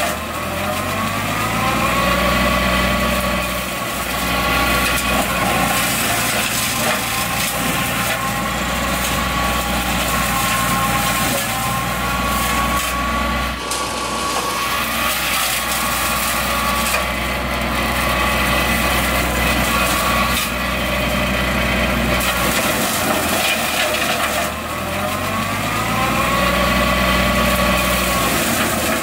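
Compact tractor's engine running under load, driving a Baumalight MP348 fixed-tooth brush mulcher through the PTO as its spinning carbide teeth chew up brush and small saplings. The engine pitch dips and recovers a couple of times as the mulcher bites into heavier growth.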